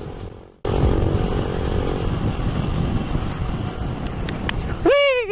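Motorcycle running on the road, its engine hum under a steady rush of wind and road noise. The sound drops out briefly about half a second in. Near the end, a loud cry falls in pitch over about a second.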